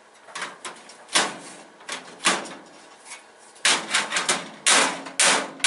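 Drawer of a metal toolbox being worked on its slides: a string of short metallic scrapes and clacks, coming louder and closer together after about three and a half seconds.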